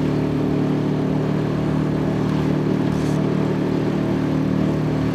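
Outboard motor pushing a small collapsible boat at a steady trolling speed, with an even hum and a rushing hiss of water and wind over it.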